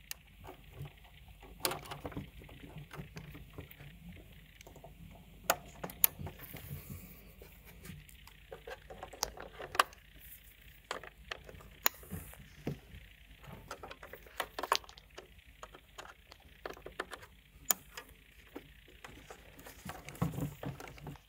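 Hands handling and plugging in Ethernet cables: irregular small clicks and knocks of plastic connectors and cable, with light rustling.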